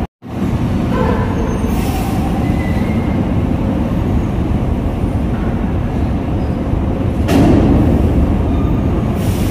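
Heavy trucks' diesel engines running with a steady low rumble during loading onto the ferry. There are short hisses twice and a louder surge about seven seconds in.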